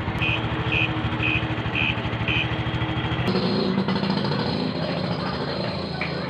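Motorcycle engine idling, with a turn-signal buzzer beeping about twice a second for the first two and a half seconds. About three seconds in, the sound changes abruptly to a different steady engine noise with more hiss.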